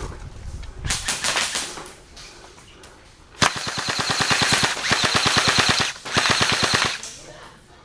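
Airsoft electric gun firing on full auto: a long burst of rapid, evenly spaced shots about three and a half seconds in, then a second shorter burst after a brief pause.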